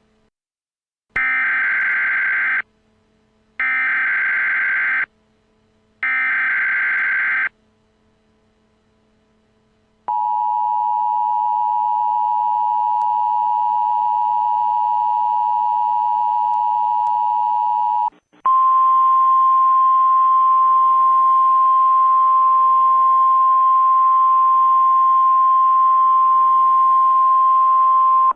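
Emergency Alert System header and attention tones, imitated: three short bursts of warbling data tones, then the steady two-tone attention signal for about eight seconds, then a single steady tone over a hiss of static.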